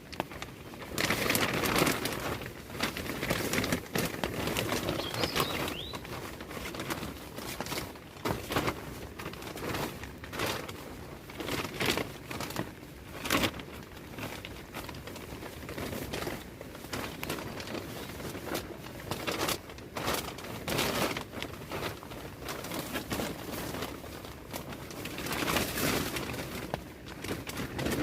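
Irregular rustling and crinkling with scattered sharp clicks and cracks, swelling louder now and then.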